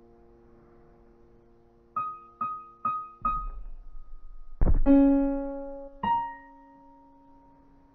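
Sparse piano notes. A chord dies away, then four quick repeated high notes come about two seconds in. A loud low chord follows near the middle and one more note a second later, both left to ring out.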